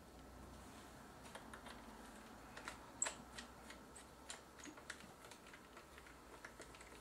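Light, irregular clicks and taps of hands working on a Sony DSR-PD170P camcorder's plastic casing during reassembly, starting about a second in, with the sharpest click about three seconds in.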